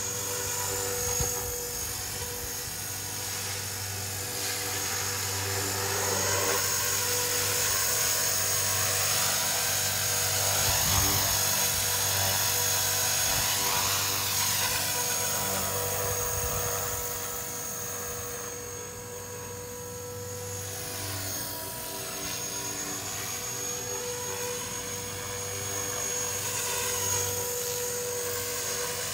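Blade 330S electric RC helicopter in flight: the steady whine of its X-Nova XTS brushless motor and spinning rotors, with a low rotor beat under a high tone. It grows louder and softer as the helicopter moves about, dipping about two-thirds of the way through.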